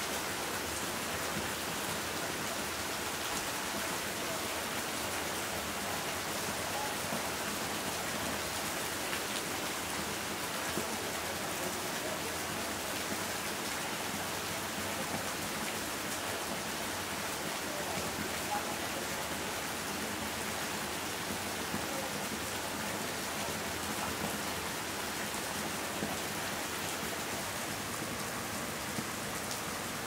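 Steady rain falling on leaves and standing water, an even hiss with a few light drop ticks.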